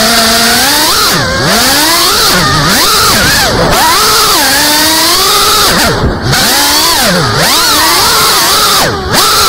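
FPV racing quadcopter's brushless motors whining loudly as it flies. The pitch swoops up and down constantly with the throttle and drops low every second or two where the throttle is chopped for dives and turns.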